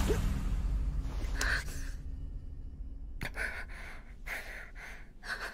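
A girl's breathing: one faint breath about a second and a half in, then a run of short gasping breaths from about three seconds on, over a low steady hum.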